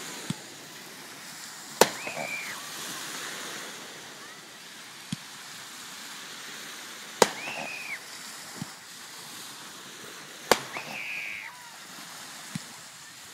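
Fireworks going off: three sharp loud bangs a few seconds apart, with fainter pops between and a short high tone after each loud one, over a steady wash of surf.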